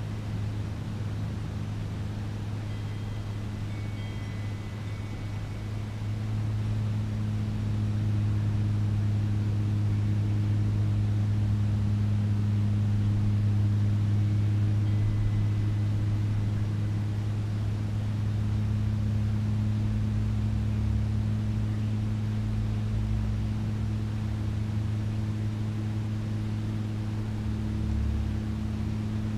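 A steady low machine hum, like an engine or motor running at a constant speed, growing louder about six seconds in and then holding steady. A few faint high chirps come briefly a few seconds in and again around the middle.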